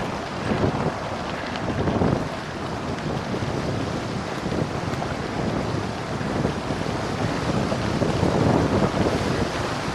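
Wind buffeting the microphone of a 360 camera on a cyclist descending at speed, mixed with the rumble of bicycle tyres rolling on a gravel road. The rush is steady with gusts.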